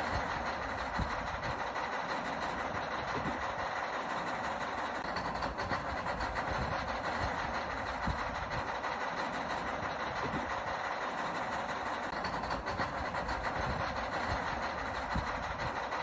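Electric gear motors of a toy radio-controlled excavator whirring steadily as it works, with scattered small knocks.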